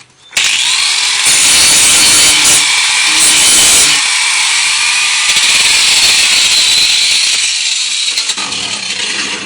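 A power grinder grinding the point off a steel screw: a loud, steady hissing grind of metal against the abrasive, starting about half a second in and easing slightly near the end.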